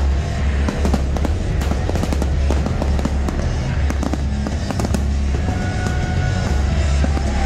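A fireworks display crackling and popping, many sharp bursts in quick succession, over music.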